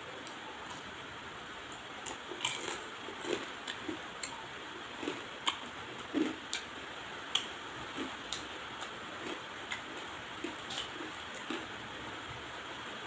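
Close-miked chewing and lip-smacking on cooked crab: an irregular run of wet smacks and small sharp clicks from about two seconds in until near the end, over a steady background hiss.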